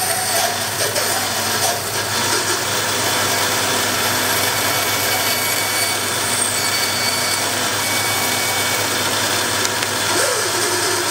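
Bandsaw running steadily while its blade cuts a wooden knife-handle blank to shape.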